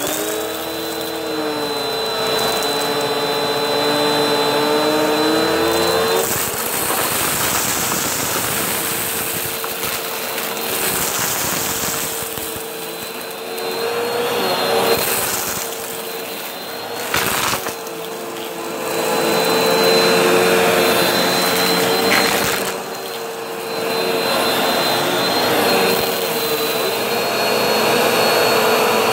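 Vacuum cleaner running, its motor giving a steady hum and high whine over a rushing hiss, the level swelling and dipping again and again.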